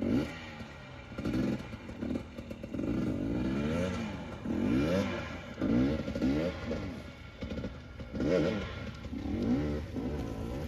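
Electric unicycle hub motor whining under hard riding, its pitch sweeping up and down over and over with the throttle, with some clatter over rough ground.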